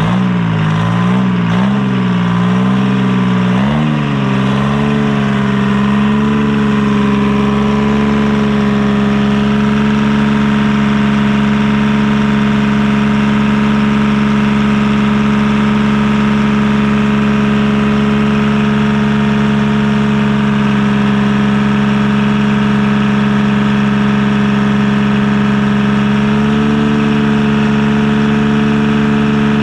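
Detroit Diesel 3-53 three-cylinder two-stroke diesel engine running. Its speed wavers up and down for the first few seconds, then settles into a steady idle that rises slightly near the end.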